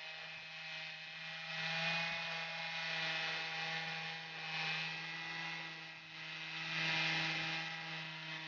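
Two-stroke Stihl 088 chainsaw power head driving a swing blade sawmill, running steadily at high speed. A hiss swells and fades about every two and a half seconds over the steady engine note.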